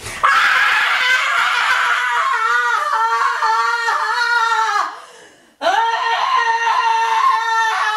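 A woman screaming at full voice in two long, held screams. The second begins a little past halfway, after a brief pause for breath.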